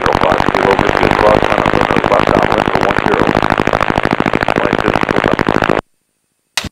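Piper Cherokee's piston engine and propeller running at taxi power, heard loud and steady through the headset boom microphone; the sound cuts off abruptly about six seconds in.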